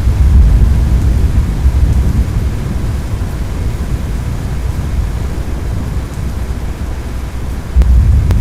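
Severe thunderstorm noise: a loud low rumble under a steady hiss of rain. The rumble swells just after the start and surges again sharply near the end.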